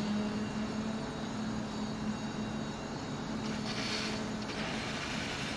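Animated-logo intro sound effects: a steady low humming drone over a rushing hiss, with a whoosh swelling and fading about four seconds in as the photos fly past.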